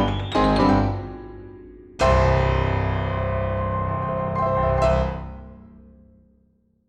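Background piano music: a quick run of notes up to about a second in, then a full chord struck about two seconds in that rings on and slowly fades out to silence.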